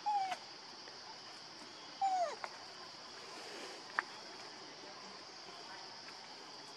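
Infant pig-tailed macaque giving two short whimpering cries that fall in pitch, one at the start and one about two seconds in. A single sharp click comes about four seconds in, over a steady high-pitched hum.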